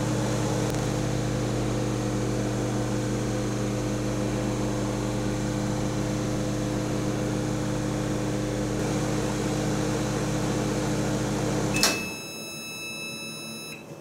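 1975 Amana Radarange RR-6W microwave oven running with a steady hum. About twelve seconds in it cuts off with a click, then gives one steady beep lasting about two seconds.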